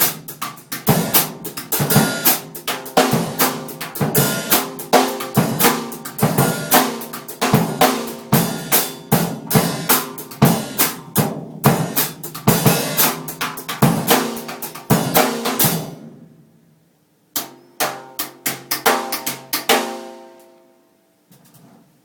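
A drum-kit beat, snare and bass drum in a steady rhythm. It breaks off about sixteen seconds in, picks up again a second or so later for a few seconds, and fades out.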